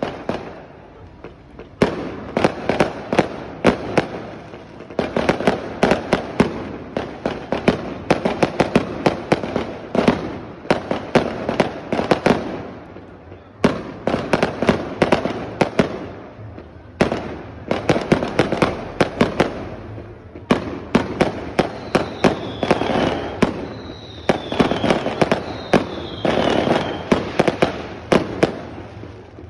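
Aerial fireworks going off in rapid volleys of sharp bangs and crackles, several seconds long and separated by brief lulls. Three short falling whistles sound over the bangs near the end.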